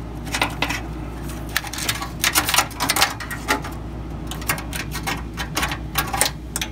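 Irregular sharp clicks and light rattles of a power-switch cable and its plastic connector being pulled up through the wiring inside a desktop computer case, over a steady low hum.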